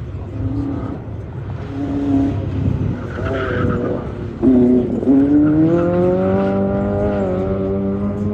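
Small sports car, a Lotus Elise, driven hard: the engine revs up and down with brief tyre squeals in the turns. About four and a half seconds in it gets suddenly louder and the engine pitch climbs steadily under acceleration, then levels off near the end.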